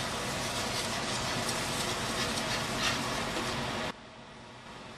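Cream sauce sizzling and bubbling in a hot sauté pan as the pan is swirled, a steady hiss with a few faint crackles; the sound cuts off abruptly about four seconds in.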